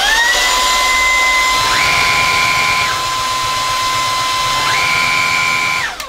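Lupe Pure cordless stick vacuum running: its motor whine rises as it switches on and settles to a steady high whine. From about a second and a half in, the floor head's brush roller adds a low rapid beat, and a higher tone comes and goes twice as the roller is switched between its two speeds. The motor winds down at the very end.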